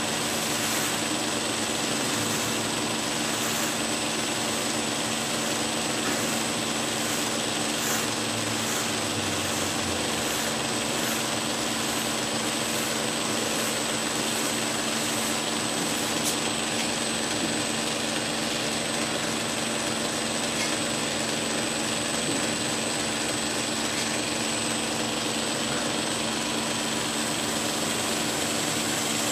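Belt grinder running steadily, its abrasive belt grinding the steel of a straight razor held edge down against the contact wheel: finish grinding the razor's bevel.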